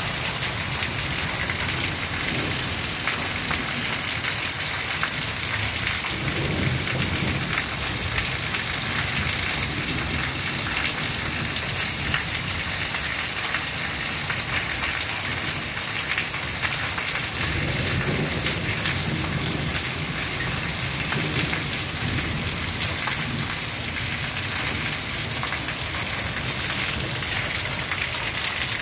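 Heavy rain pouring down steadily on trees and roofs, a dense unbroken hiss. Two low rumbles of thunder come through it, one about a quarter of the way in and one a little past the middle.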